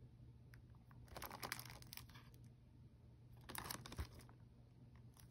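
Shrink-wrapped plastic Blu-ray case handled and turned over in the hands: two brief bursts of crinkling from the plastic wrap, the second ending in a soft knock about four seconds in.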